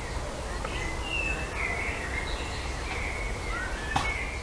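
Birds chirping in short, high whistled notes over a steady low outdoor rumble, with a single sharp click near the end.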